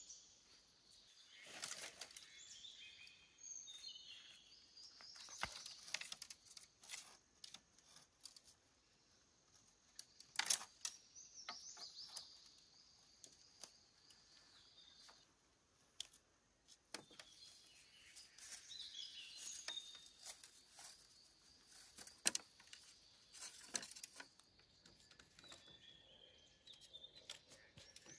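Birds chirping and singing, with scattered short knocks and rustles from thin bamboo stakes being handled and pushed into garden soil.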